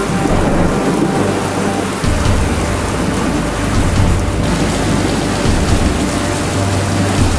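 Heavy thunderstorm rain pouring down steadily, with a low rolling rumble of thunder that grows stronger about two seconds in and continues.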